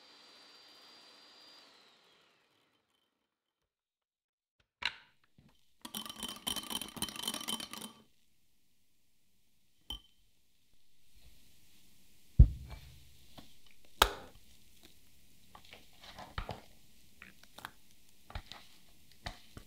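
A wire hand whisk beating cream in a glass bowl: about two seconds of rapid scraping strokes. Later come scattered clinks and knocks of utensils against the glass bowl, two of them louder thunks.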